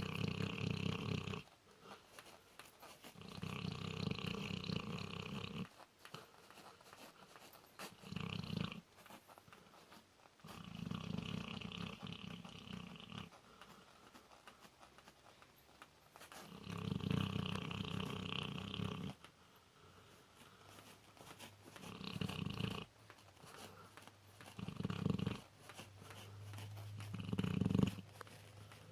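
A sleeping dog snoring: long snores of two to three seconds each, several seconds apart, turning shorter and closer together near the end.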